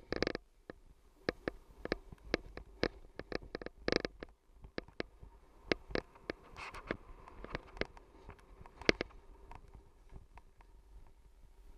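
Irregular sharp clicks and knocks from a head-mounted action camera jostled as its wearer slides down a groomed ski run, over a steady low rumble of wind on the microphone.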